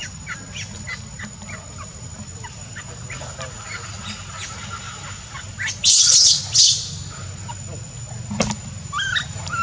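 Animal calls: short high chirps, then two loud shrill screeches about six seconds in and rising squeaks near the end.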